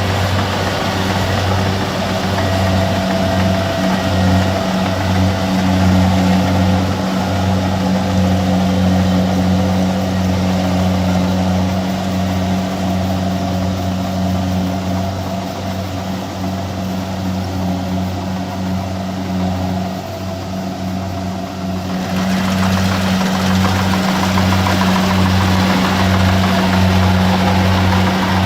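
A farm harvesting machine's engine running steadily with a low, even hum. About two-thirds of the way through, more high-pitched mechanical noise joins it.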